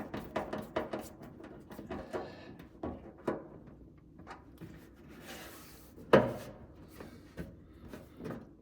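Clatter of parts and tools being handled: short knocks, clicks and rubbing, with one sharp knock about six seconds in.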